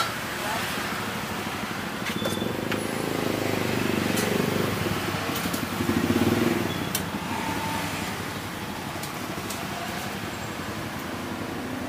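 Street traffic, with a vehicle passing that grows louder over a few seconds, peaks about six seconds in, then fades back to a steady traffic hum. A few short, light clicks are heard now and then.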